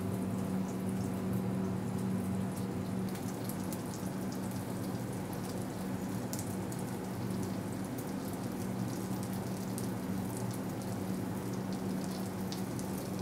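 Eggnog-soaked French toast frying in butter in a nonstick pan: a steady sizzle with scattered small pops and crackles, over a steady low hum.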